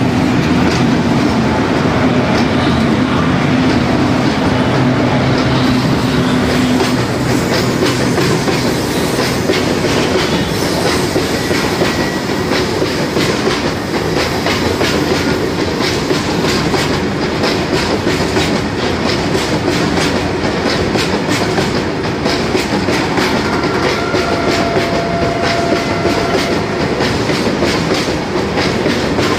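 Freight train hauled by a WAG-series electric locomotive passing close by at speed, with a loud, steady rumble and fast clickety-clack of wagon wheels over the rail joints. A low steady hum runs through the first several seconds, while the locomotive is alongside, then gives way to the clatter of the flat wagons.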